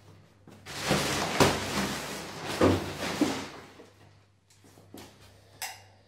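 A door being handled: rattling and knocking for about three seconds, then a single sharp click near the end.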